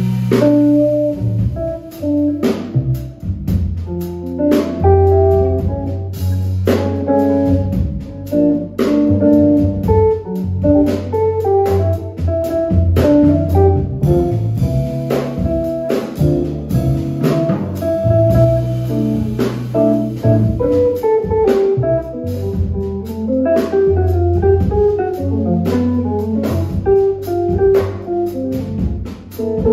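Live jazz band playing: a plucked guitar melody over held electric bass notes and a drum kit.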